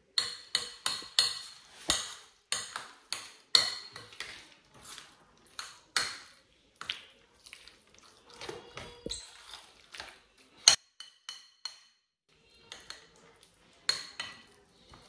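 A metal utensil mixing food in a glass bowl, clinking and knocking against the glass in irregular strokes, two or three a second, with a brief pause near the end.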